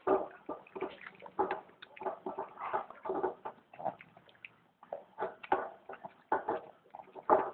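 A small dog eating soupy food from a plastic bowl: irregular wet chewing and lapping, a quick run of short mouthfuls with brief pauses between them.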